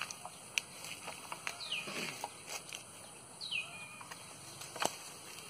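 A bird repeating a short call that slides downward in pitch, twice, about two seconds apart. Scattered sharp clicks and knocks, the loudest near the end, from a long bamboo pole being poked among guava tree branches.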